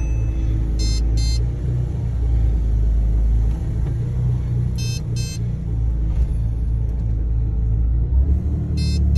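2007 Porsche 911 GT3's flat-six engine idling steadily just after a cold start, a low rumble heard from the driver's seat. Pairs of short high electronic beeps about every four seconds come from a rodent-deterrent gadget in the car.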